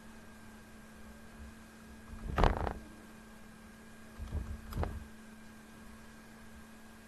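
Steady faint electrical hum from the recording setup, with short desk knocks from working the computer: one louder knock about two and a half seconds in, then two lighter ones half a second apart near the five-second mark.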